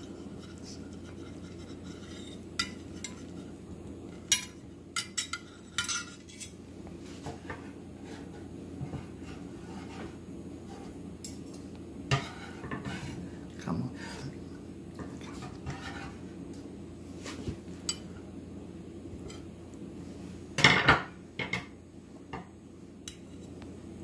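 Metal slotted spatula and tongs clinking and scraping against a ceramic platter as slices of roast pork are laid on it: scattered light clinks, with a louder clatter near the end, over a steady low hum.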